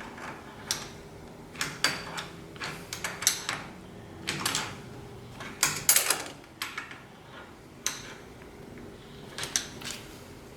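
Irregular metal clicks, knocks and short scrapes of hand work on hydraulic fittings and fork hardware, loudest about six seconds in.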